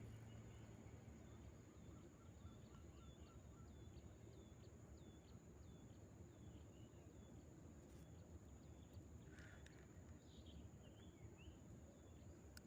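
Quiet outdoor ambience: a bird gives a faint series of short chirps over about six seconds, over a low background hiss and a steady high-pitched tone.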